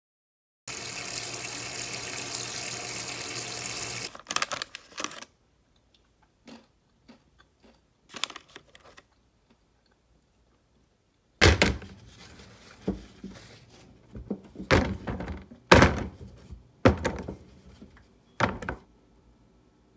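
Water running from a tap for about three seconds, then a few faint rustles, then a run of loud knocks and thuds as things are handled at a stainless-steel kitchen sink, where raw potato wedges are being laid out and a plastic container stands.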